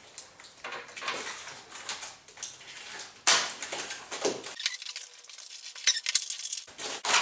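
Rustling and crinkling of packaging and small parts being handled as accessories are pulled out of a foam box, with irregular light clatters and a louder crinkle about three seconds in.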